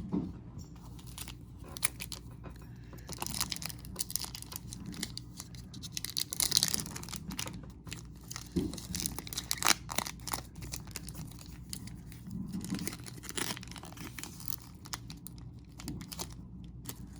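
Baseball card pack wrapper crinkling and tearing as it is opened by hand, and cards rustling as they are handled and flipped through, in irregular scratchy rustles and clicks.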